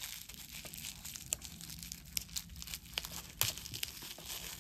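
Wrapping crinkling and rustling as a piece of jewelry is unwrapped by hand, with several sharp clicks and ticks.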